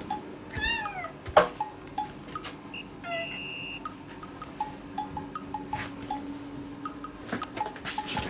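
A domestic cat meowing once, a short call that rises and falls in pitch, followed a moment later by a sharp knock, the loudest sound.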